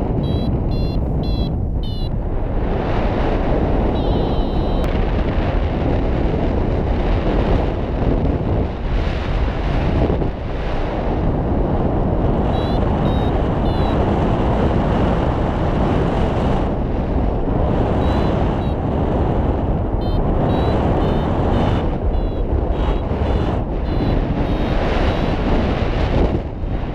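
Paragliding in flight: air rushes loudly and steadily over the microphone. Runs of quick, high beeps from a flight variometer come near the start, about halfway through, and through the last several seconds; these are its climb tone, the sign of rising air.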